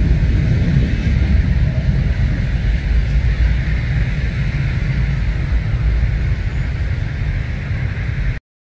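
Jet engine noise from a Boeing 777-300ER's GE90 turbofans as the airliner flies away overhead: a steady deep rumble with a hiss above it, slowly fading. It cuts off suddenly near the end.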